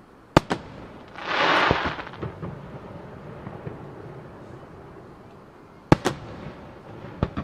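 Aerial firework shells bursting: a sharp bang about half a second in with a quick echo, a loud rushing hiss lasting about a second, then two more bangs near the end.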